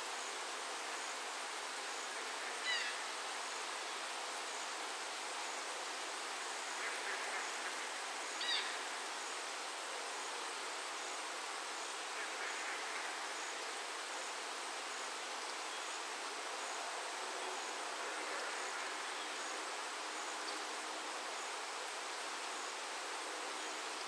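Steady rain falling. A few short chirps stand out over it, the loudest about three and eight and a half seconds in.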